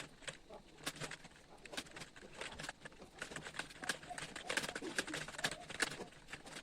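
Fast typing on an Intex computer keyboard: a continuous stream of irregular keystroke clicks, several a second, during a timed typing-test practice.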